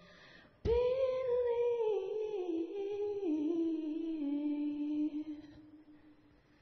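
A solo voice humming one long melodic note that begins about half a second in, steps slowly down in pitch and fades out near the end.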